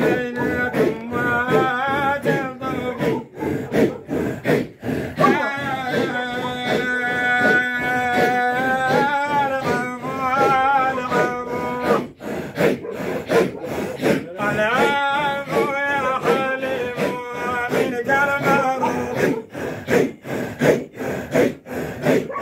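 Group of men chanting a Sufi dhikr a cappella, melodic lines rising and falling over a steady low held note, with a brief break about halfway through.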